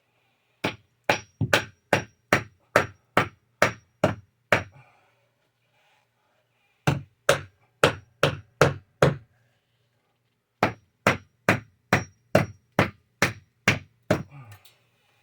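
A hammer striking repeatedly in three runs of quick, even blows, about two and a half a second, with short pauses between runs: nailing in the piece of wood that will carry the attic fan's mounting brackets.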